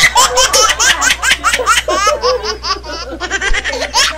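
High-pitched laughter in quick, breathless peals, several a second, easing off about halfway through.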